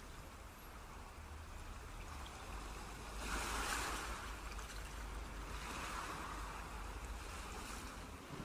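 Outdoor seaside ambience: wind rumbling on the microphone and a rushing noise that swells about three seconds in and again around six seconds.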